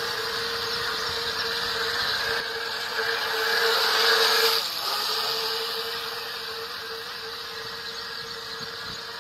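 Electric motors of a Toyshine 3223 RC speedboat with twin tail propellers, running at speed with a steady high whine. It is loudest as the boat passes close about four seconds in, dips briefly in pitch, then fades as the boat moves away.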